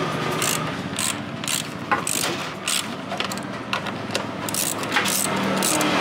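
Socket ratchet wrench clicking in short, irregular strokes, about two or three a second, as a bolt is turned by hand.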